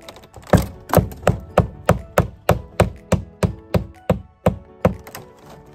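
Claw hammer driving a roofing nail into the nailing strip of a vinyl siding panel: a run of about fourteen quick strikes, about three a second, stopping about five seconds in.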